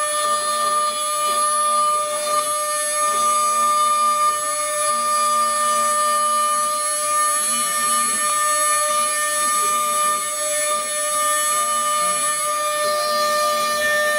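CNC router spindle whining at one steady pitch while its tapered end mill carves a relief into wood, with lower tones coming and going as the machine moves the cutter.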